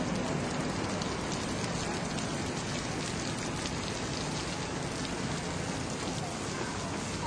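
Steady rain falling: an even, unbroken wash of noise made of many fine drop ticks, at a constant level.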